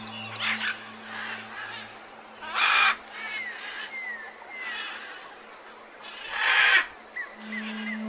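Tropical rainforest soundscape: birds calling with short falling whistles, and two loud, noisy animal calls about four seconds apart. A soft, low music drone fades out early and comes back near the end.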